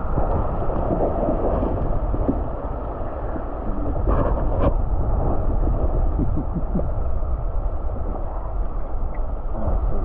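Creek current heard underwater through a submerged camera: a steady, muffled rushing rumble of flowing water, with a couple of faint clicks about four seconds in.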